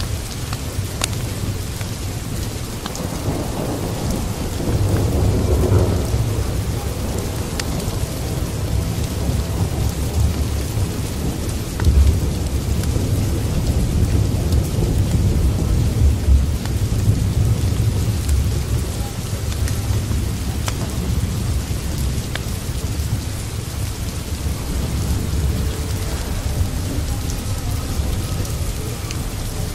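Steady rain with rumbling thunder, the rumble swelling a few seconds in and peaking briefly twice more in the middle.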